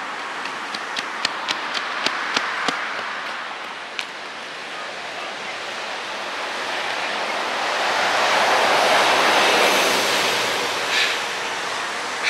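Running shoes slapping on a concrete sidewalk, about three strides a second and growing louder as the runner comes near, over steady road traffic. Later a broad rush of passing traffic swells and fades, and near the end come a couple of hard breaths from the winded runner.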